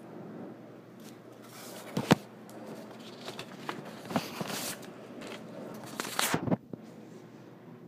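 Handling noise on a handheld phone: rustling and scraping with sharp knocks, the loudest about two seconds in and a cluster of knocks just past six seconds.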